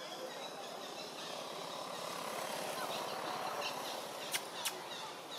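Steady outdoor background noise that swells in the middle, with two sharp clicks close together a little past four seconds in.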